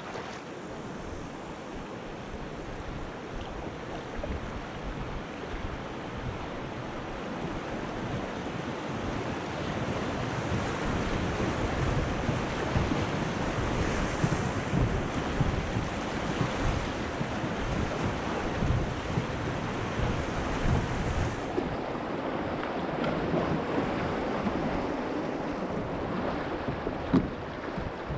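Rushing river rapids splashing around a kayak as it runs through whitewater, with wind buffeting the microphone; the rush grows louder toward the middle. A single sharp knock near the end.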